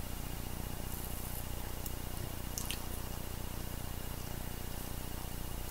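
A person drinking a sports drink from a bottle: faint sips and swallows, with a couple of small clicks, over a steady hiss.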